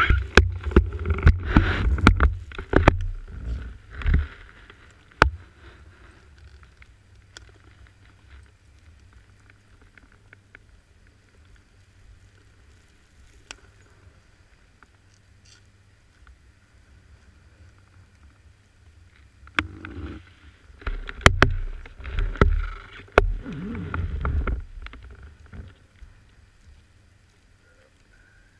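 Bumps, knocks and low rumble picked up through a ski-mounted action camera as the ski is shifted and knocked in the snow: a spell in the first few seconds, a long quiet stretch, then another spell a little after twenty seconds.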